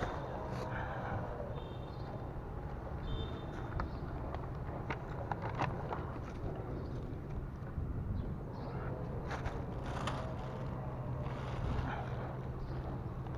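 Steady low engine drone with a constant hum, with scattered small knocks and clicks over it.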